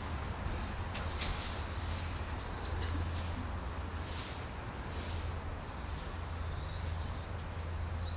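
Street ambience: a steady low hum, with small birds giving short high chirps, a few in the middle and more near the end.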